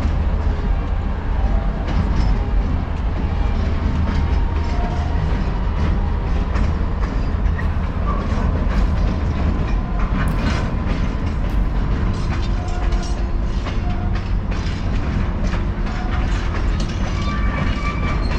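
Train running on rails: a steady low rumble with scattered clicks of wheels over the rail joints.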